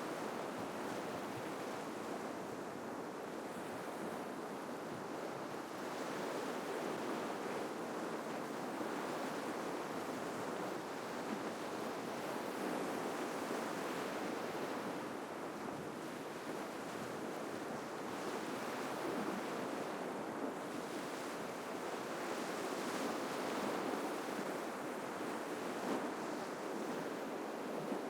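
Ocean surf washing onto the shore: a continuous rushing that swells and eases slightly, with no single loud crash standing out.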